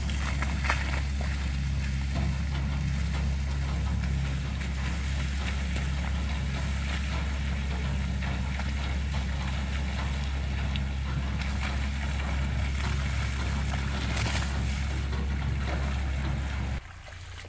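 Concrete pump's engine running steadily while the last of the concrete is pushed out through the hose, then cutting off suddenly near the end.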